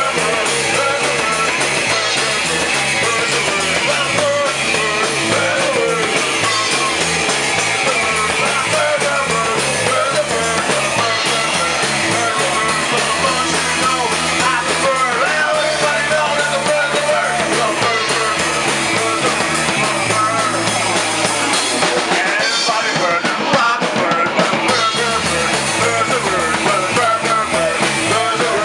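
Rock band playing loud, driving punk-style rock with drum kit and electric guitar over a repeating bass line.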